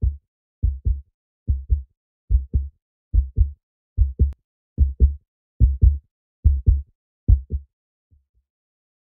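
Heartbeat sound effect: pairs of short, low thumps repeating a little under once a second, about ten beats, fading out about eight seconds in.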